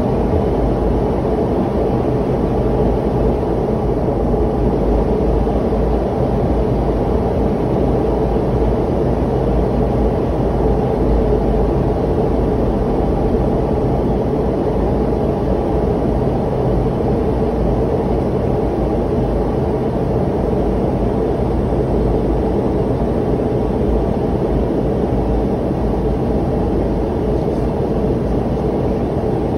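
Steady cabin noise of a jet airliner descending on approach: engine and airflow noise heard inside the passenger cabin, a low even rush with a faint hum.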